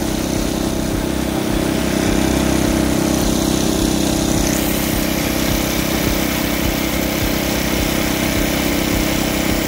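Single-stage snow blower's small gasoline engine running steadily under load while the auger throws snow out of the chute, with a steady rush of noise over the engine note.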